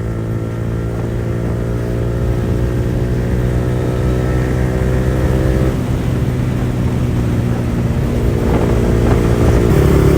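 Yamaha R15 V4's single-cylinder engine running through an aftermarket R9 exhaust with no dB killer while the bike is ridden. The engine note shifts about halfway through and grows louder toward the end as the bike pulls harder.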